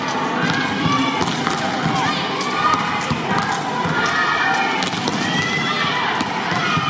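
Many high women's voices calling and shouting over one another, volleyball players during a passing warm-up, with scattered sharp thuds of balls being struck.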